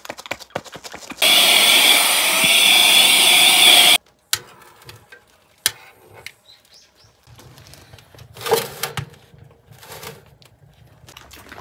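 A small electric motor whirs loudly for about three seconds, then stops abruptly. After it come scattered metal clicks and a few knocks from the Wood and Burn Crossover XL wood stove as its door and the drawer beneath the firebox are handled.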